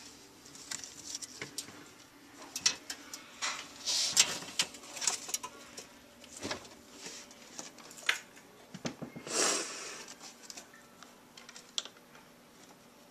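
Irregular rustling of plastic and paper with scattered light clicks and knocks as a ferret rummages through clutter in a cabinet. There are two longer, louder rustles, about four and nine and a half seconds in.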